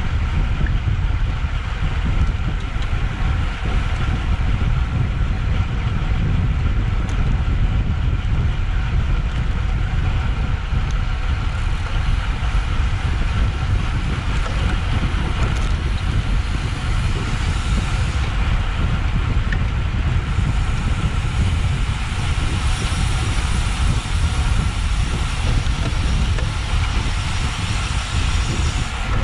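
Wind buffeting an action-camera microphone over road and tyre noise from a road bike at race speed: a steady, loud low rumble with a faint steady hum above it.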